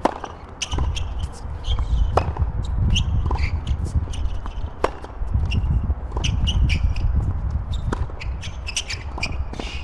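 Tennis rally on a hard court: racket strokes and ball bounces, sharp pops coming about every second, with players' shoes scuffing and squeaking on the court, over a steady low rumble.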